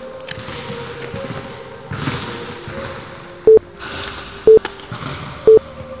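Three short electronic countdown beeps from a multi-stage fitness (beep) test recording, one a second, each a single steady mid-pitched tone. They count down the last seconds before the test starts.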